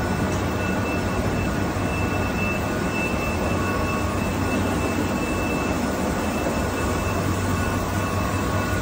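Steady machinery hum and rushing noise of a running electroplating line, with a low hum and a faint steady high whine over it.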